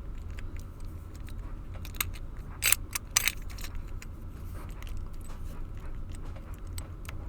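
Key clicking and rattling in a Master Lock 410 LOTO padlock as it is turned and tugged, with a few sharper clicks about two to three seconds in. The key will not come out of the lock.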